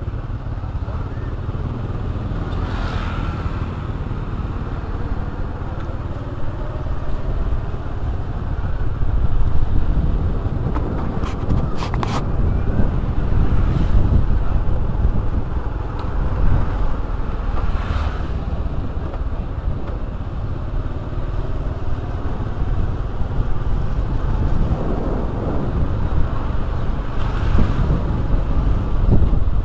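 Motorcycle running along a road, heard from the rider's seat, with heavy wind rumble on the microphone and a few brief clicks and passing swells.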